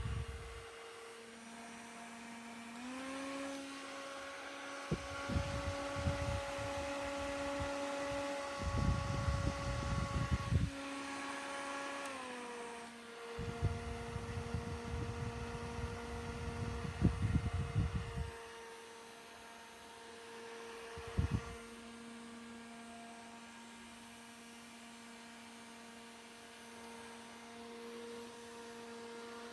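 Mini desk fan running with a steady motor hum. About three seconds in it steps up to a higher speed and drops back about twelve seconds in. Irregular bursts of low rumble come and go along with it.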